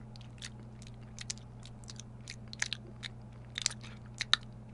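A person chewing and crunching candy: irregular, crisp crunches over a steady low hum.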